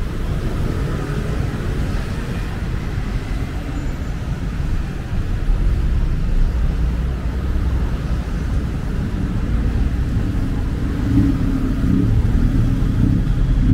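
Road traffic noise: passing car engines in a steady low rumble that grows louder about five seconds in.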